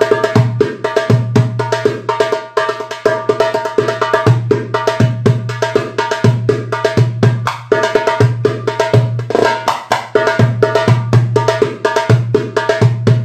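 Alexandria-style metal-bodied darbuka with a Power Beat head played by hand in a fast rhythm: deep doum strokes every half second to a second under rapid sharp tek and ka strokes.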